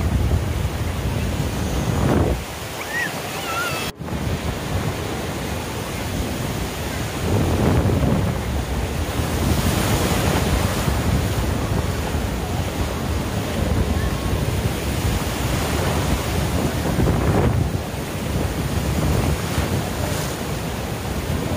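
Sea surf: waves washing in and breaking in slow surges every few seconds, with wind rumbling on the microphone. The sound cuts out for an instant about four seconds in.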